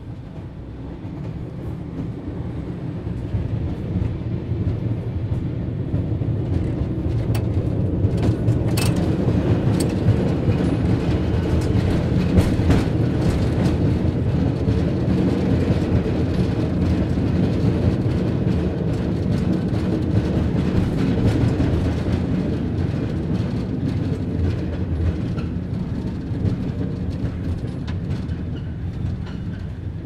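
Cable car running: a low mechanical rumble with clicking and clatter that builds over the first several seconds, holds, and eases off toward the end.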